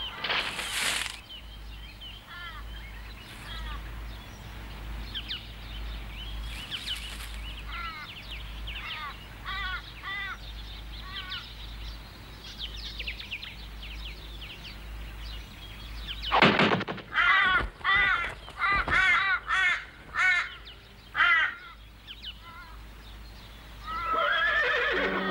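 Cartoon crows cawing: scattered short calls, then a louder run of harsh caws about two-thirds of the way in. Music starts near the end.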